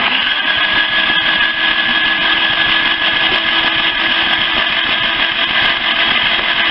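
Lifan car engine being cranked over on its electric starter in one steady unbroken run, starting abruptly, with a steady whir. It is being turned over to push decarbonizing liquid out of the cylinders.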